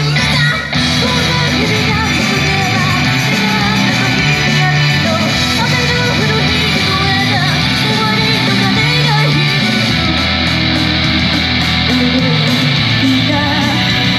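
Loud rock-style pop song with electric guitar and sung vocals.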